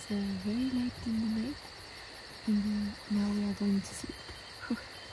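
A voice humming a short tune softly in low held notes, some sliding upward, with crickets chirping steadily behind it.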